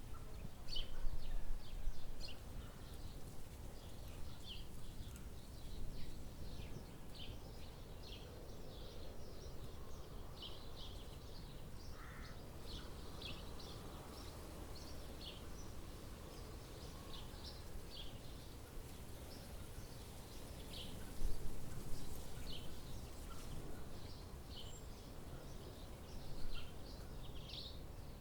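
Outdoor ambience: many small birds chirping in short high notes over a steady low background rumble, with a few brief low thumps, the loudest about two-thirds of the way in.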